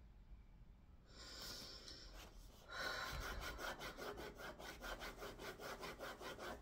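Fast, even rubbing or scraping strokes, about five a second, starting a little under three seconds in, after a brief soft hiss.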